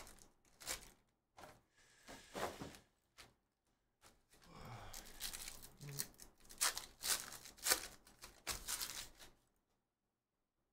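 A Panini Phoenix hobby box being handled and a foil trading-card pack torn open by hand, a run of short crinkles and rips, with the cards slid out near the end.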